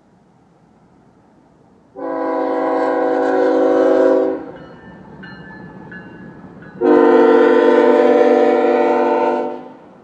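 GE ES44C4 diesel locomotive's air horn sounding two long blasts, the second a little longer, with quieter train rumble between them as the cars roll past.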